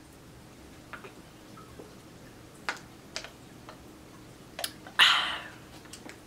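Drinking from a plastic water bottle close to the microphone: a few small scattered clicks, then a short loud rush of noise about five seconds in.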